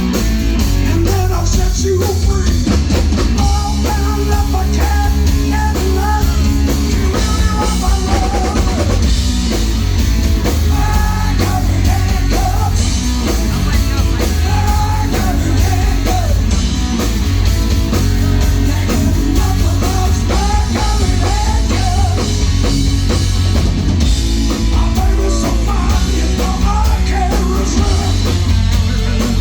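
Live rock band playing a song: drum kit, bass and electric guitar, with singing.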